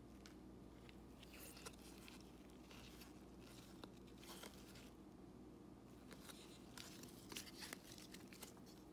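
Faint scrapes and light ticks of glossy trading cards sliding against each other and being flipped through by gloved hands, busier near the end, over a low steady hum.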